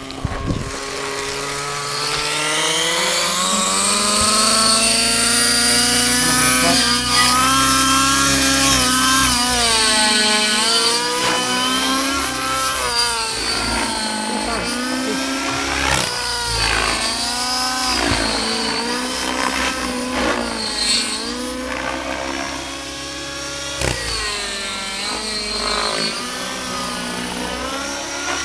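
Align T-Rex 700 radio-controlled helicopter flying 3D aerobatics: a steady mechanical whine from its rotor head and drive that climbs in pitch over the first few seconds, then keeps rising and falling as the helicopter loads and unloads through its manoeuvres.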